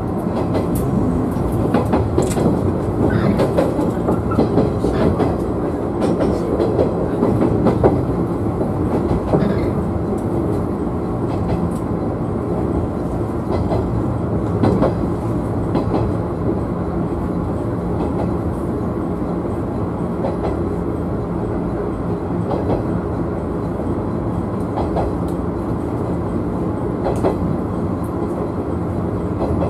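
JR 113-series electric multiple unit running along the line: a steady rumble of wheels and running gear, with irregular clicks as the wheels cross rail joints. It is a little louder in the first few seconds, then even.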